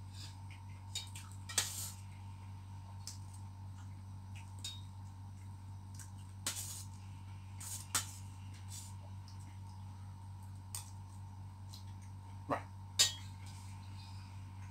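Metal spoon clinking and scraping against a stainless steel bowl while eating, a few scattered sharp clinks with the loudest near the end, over a steady low hum.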